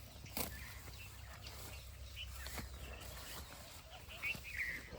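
Farmyard sounds on a buffalo dairy farm: a few sharp knocks and short high chirps over a low steady hum.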